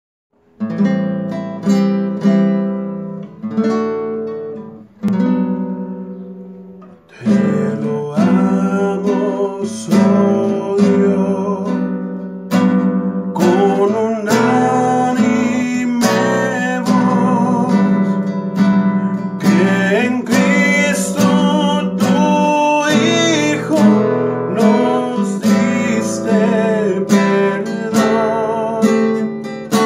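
A nylon-string classical guitar plays a hymn in strummed and plucked chords. The chords ring out and fade briefly in the first several seconds, and a man's voice joins in singing partway through.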